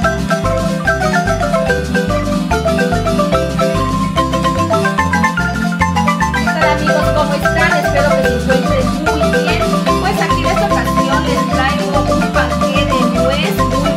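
Intro background music: a quick melody of short, bright notes over an evenly pulsing bass beat.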